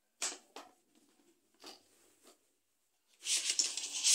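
A few light clicks and taps of plastic cabinet panels and connectors being handled. About three seconds in, a louder burst of rustling and scraping follows as the parts are moved about.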